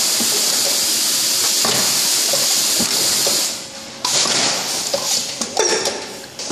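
Rotary ayran cup packaging machine running: a loud steady hiss that drops away about three and a half seconds in, then irregular mechanical clicks and knocks with a couple of short squeaks.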